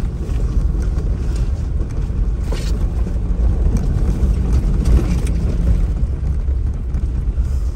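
Off-road vehicle driving a rough trail: a steady low engine and tyre rumble, with a couple of knocks and rattles about two and a half and five seconds in.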